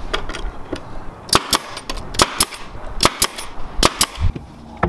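A series of sharp knocks or clacks from hand work on the plywood panels and piano hinges: a few light clicks, then four double knocks coming a little under a second apart.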